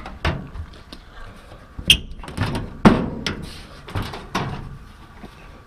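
Steel hood of a 1941 Dodge WC pickup being unlatched and swung open: a series of sharp metal clunks and clicks, the loudest about two and three seconds in.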